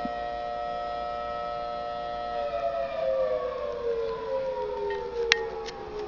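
Recording of a Federal Signal Thunderbolt civil defense siren played through a laptop speaker: a steady wail of several tones at once that begins winding down about two and a half seconds in, falling in pitch. A sharp click sounds a little after five seconds in.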